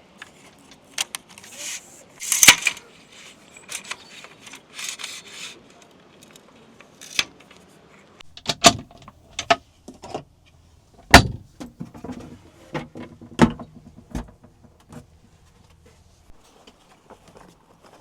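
Camping gear being handled and set up: a string of irregular sharp knocks and metallic clanks with short rustles. The loudest knocks come about a third of the way in and twice more past the middle.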